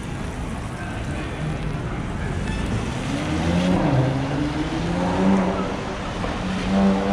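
Busy shopping-street ambience: a steady hiss of road traffic on the wet street, with passers-by talking close by in the second half.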